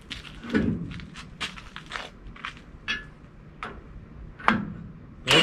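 Irregular metal clanks and knocks from hands and a tool socket working a bolt into a gooseneck coupler, the loudest about half a second in, near four and a half seconds and at the end.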